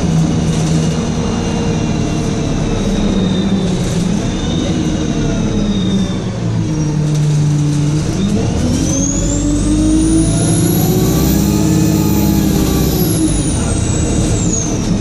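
Bus diesel engine pulling away and accelerating, with a high turbocharger whine. About halfway through the whine climbs steeply in pitch, then falls away again near the end as the engine eases off.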